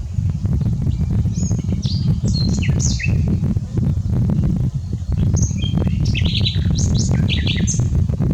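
Common nightingale singing two phrases of quick, varied high notes, one about a second in and another from the middle almost to the end. A steady low rumble runs underneath throughout.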